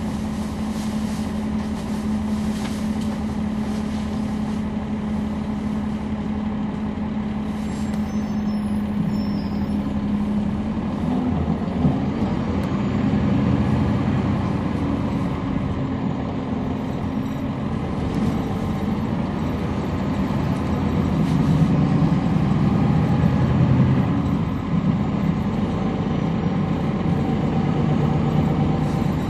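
Bus interior: the Cummins ISL9 inline-six diesel of a 2011 NABI 40-SFW transit bus runs with a steady hum. About a third of the way in the bus moves off, and the engine note becomes louder and shifts in pitch.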